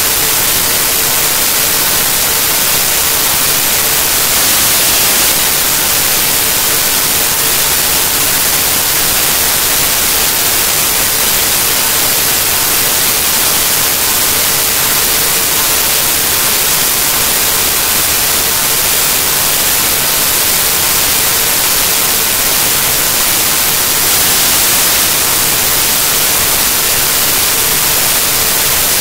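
Loud, steady static hiss like white noise, with a faint steady tone beneath it; no music or voice.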